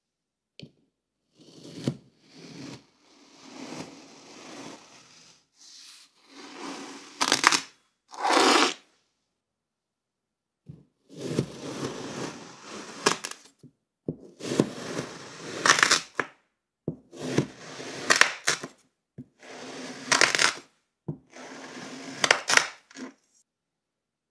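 A knife slicing down through a packed kinetic sand cake, cut after cut: each stroke a grainy scrape with sharp clicks in it, about a dozen strokes with short silences between and one longer pause midway.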